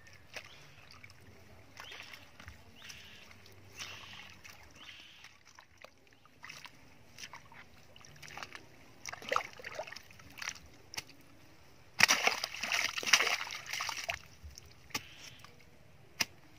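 A steel shovel digging into a water-filled hole of wet mud, with scattered scrapes, squelches and sloshes. About twelve seconds in comes the loudest stretch, two seconds of splashing and sloshing as the shovel works the muddy water.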